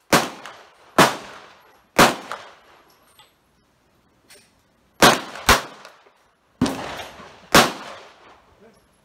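Bersa Thunder 380 CC pistol firing .380 ACP rounds: seven sharp shots at an uneven pace, mostly about a second apart, with a pause of some three seconds after the third. Each shot trails off in a short echo.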